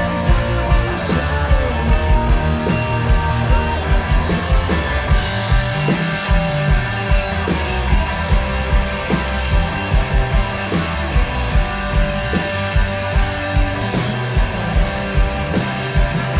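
Rock band playing live, an instrumental passage of guitar over a steady drum beat with no singing.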